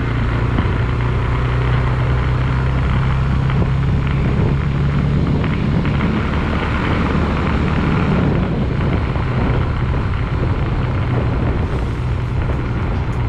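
Small motorcycle engine running at a steady cruise, with a constant wash of wind and road noise from riding along a paved road.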